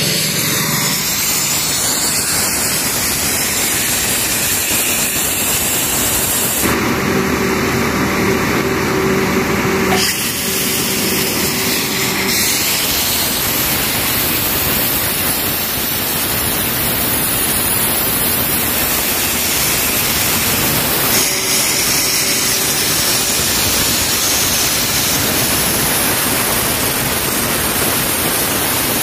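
Sandblaster nozzle hissing steadily as grit is blasted onto a rusted excavator hydraulic cylinder rod, stripping the rust so the rod can be repainted. The hiss shifts in tone a few times as the blast moves.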